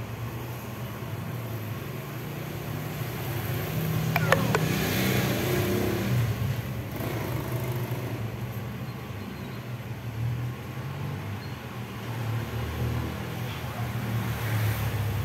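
Hot-air rework station blowing steadily, its fan humming, as it heats a shorted oscillator chip to desolder it from the board. A short falling squeak comes about four seconds in.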